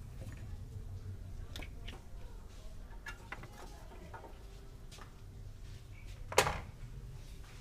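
Scattered light clicks and knocks of hand work under a car bonnet, with one sharp, loud clack about six seconds in, over a low steady rumble.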